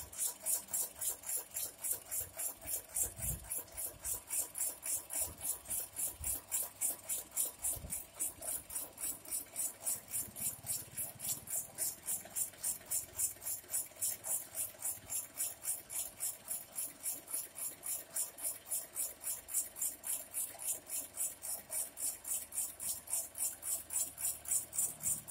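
Electric jackfruit slicer running, a steady hum under a rhythmic hiss that pulses about four times a second as jackfruit is fed through its blades. A few low thumps sound in the first eight seconds.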